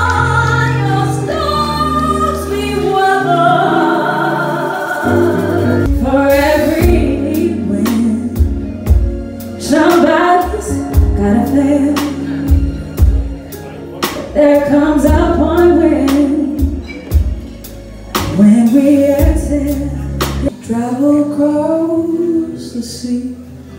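Women singing with instrumental backing. The music changes abruptly about six seconds in to a section with heavy bass and drum hits, and again near the end to a quieter accompaniment.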